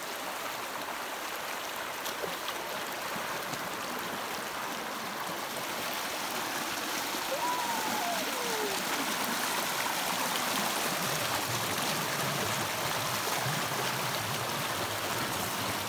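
A fast-flowing muddy stream rushing over rocks, steady throughout. About halfway through comes a single short falling bird call.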